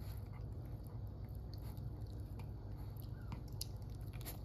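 Pomeranian spitz chewing and biting a fish treat, with scattered small crunches, over a steady low hum.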